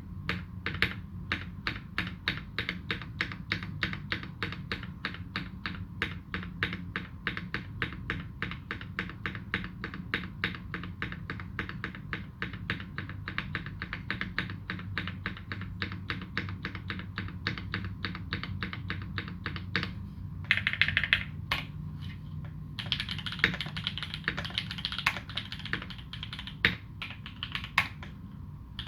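Typing on a UTD360C custom mechanical keyboard with fully modded Alpaca v2 linear switches, GMK Dolch keycaps and tuned Cherry screw-in stabilizers: a rapid, even run of key clacks that becomes a denser, brighter flurry about two-thirds of the way in.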